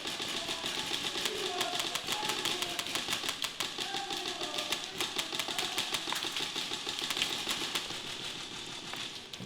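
Rapid clicking bursts of airsoft gunfire from several replicas firing at once, with faint shouting from players underneath.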